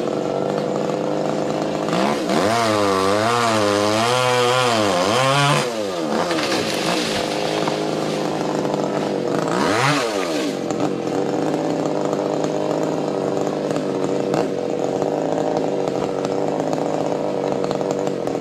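Chainsaw engine running high in a tree, its pitch swinging up and down in waves for a few seconds, dropping and picking up again about ten seconds in, then running steadily.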